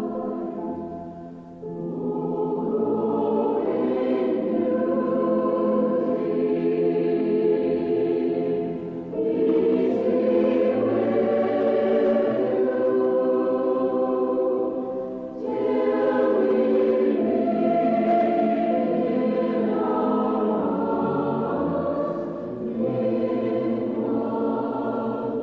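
Church choir singing a liturgical chant in long phrases, with short breaks for breath between them.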